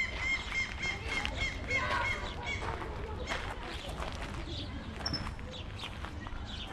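Outdoor ambience: a bird chirping in a quick, even series for the first couple of seconds, then scattered crunching on gravel over a steady low wind rumble on the microphone.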